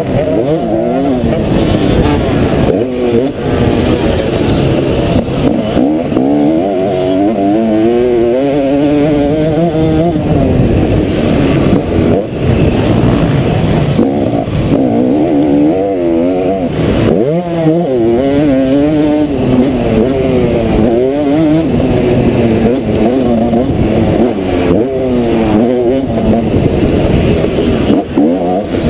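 Motocross bike engine at full race pace, its note repeatedly climbing and dropping as the rider accelerates, shifts gear and backs off for corners and jumps.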